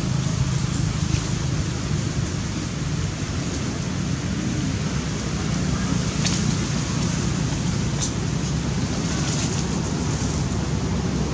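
Steady low rumbling background noise, with a couple of faint clicks about six and eight seconds in.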